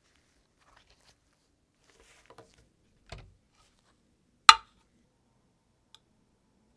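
A few hard objects being handled on a work surface: faint taps, a dull knock about three seconds in, then one sharp, loud click a second and a half later, and a last small tick.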